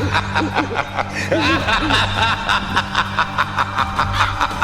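Background music with a fast, steady beat, with a person's snickering laugh over it.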